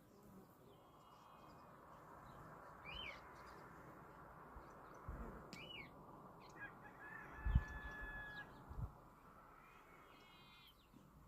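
Several birds calling now and then over a steady background hiss, with a few low thumps in the middle, the loudest of them about two-thirds of the way in.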